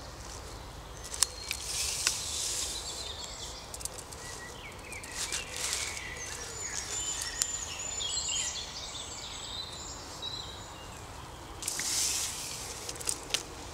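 Birds singing in woodland, with scattered sharp clicks and a couple of brief rustles from handling a camera on a monopod.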